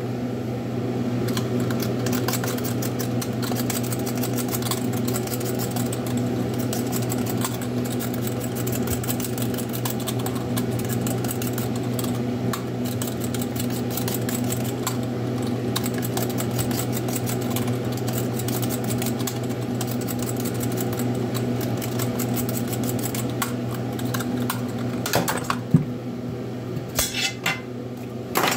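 Rapid, continuous scraping of a hand blade stripping peel off a potato, the peelings flicking into a stainless steel sink, over a steady electrical hum. Near the end a few louder metallic clinks as the potato goes into a steel pot.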